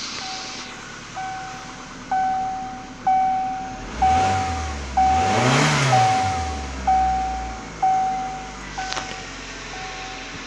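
2010 Hyundai Getz 1.4-litre four-cylinder petrol engine revved once up to about 4,000 rpm and let back down. A dashboard warning chime beeps steadily about once a second throughout.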